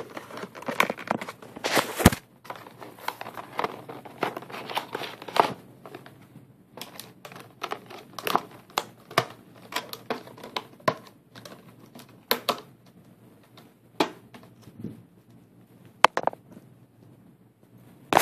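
Plastic packaging crinkling and rustling as a cable is taken out of it, with irregular sharp clicks and snaps throughout.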